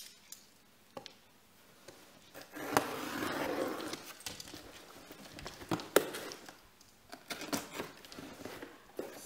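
A cardboard package being handled: a brief rustle about three seconds in, then scattered taps and knocks.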